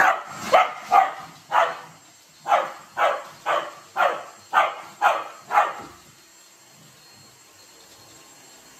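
Pembroke Welsh corgi barking about a dozen times, roughly two barks a second, stopping about six seconds in.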